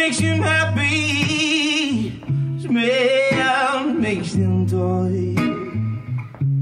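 Live band music: a voice sings long notes with wide vibrato over sustained bass notes, with guitar in the mix.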